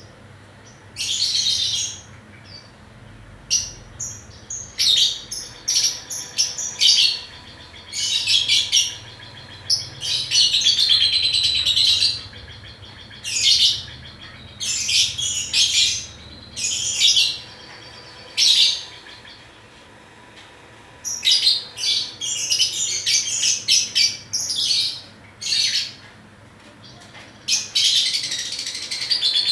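Pet lovebird chattering in repeated high-pitched bursts of rapid twittering, some brief and some running a couple of seconds, with short pauses between them and a long run near the end.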